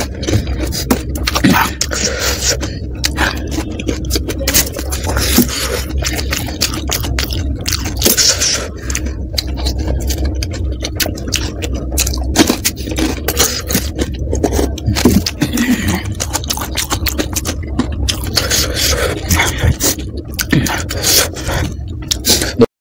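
Close-miked eating of panipuri: the puri shells crunch and are chewed wetly, in dense irregular crackles throughout. The sound cuts off abruptly near the end.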